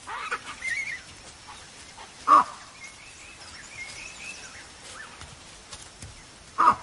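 Baboons barking in alarm: a few short sharp calls in the first second, then two loud barks with falling pitch, one about two seconds in and one near the end. Faint bird chirping runs between them.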